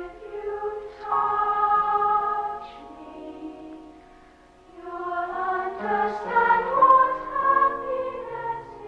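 Youth choir singing with a symphony orchestra. The music swells about a second in, sinks to a soft passage around the middle, then builds to a loud climax near the end.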